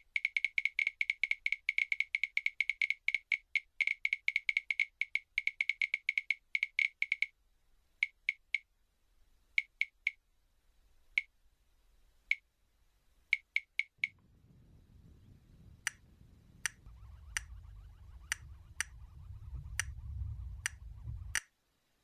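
Sharp, high clicking calls, very fast at first at about eight a second, then slowing to scattered single clicks. From about two-thirds of the way through, a low rumble of wind and choppy water rises beneath them and stops abruptly just before the end.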